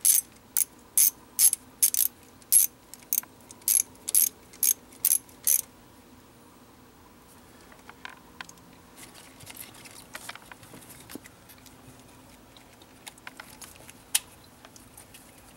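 Socket ratchet clicking on its back strokes while tightening fuel rail bolts: about fourteen quick rattles, two or three a second, over the first five and a half seconds. After that there is only faint rustling and one sharp click about fourteen seconds in.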